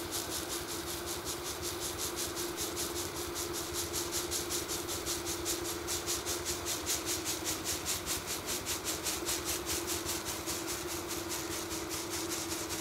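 Wheat grain pouring from a shaken bamboo winnowing tray onto a heap, a rustling hiss that pulses about five times a second, over the steady hum of a running pedestal electric fan.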